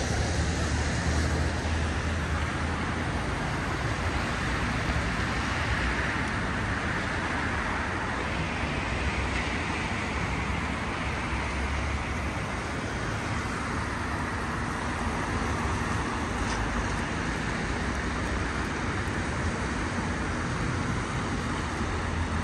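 City street traffic: a steady wash of passing vehicles' engines and tyres, with a constant low rumble underneath.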